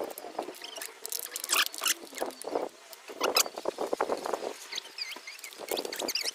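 Potting soil being scooped and pressed into a planter box by hand: irregular rustling, scraping and light knocks, with a few short squeaks near the end.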